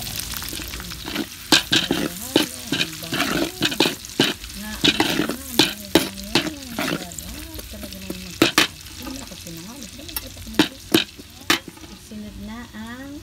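Chopped garlic and onion sizzling in hot oil in an aluminium wok while a metal spoon stirs them, clinking and scraping sharply against the pan. The clinks run from about a second in and stop a little before the end, leaving the sizzle alone.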